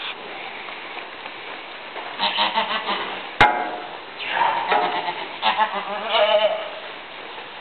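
Goat bleating: three calls, the first starting about two seconds in, with a single sharp click between the first and second.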